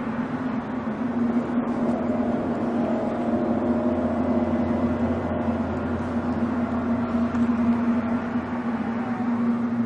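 A steady low drone holding one pitch, with a fainter higher tone that wavers through the middle and a deeper hum that swells and fades. It is the kind of unexplained sky drone passed around as a strange sound from the sky.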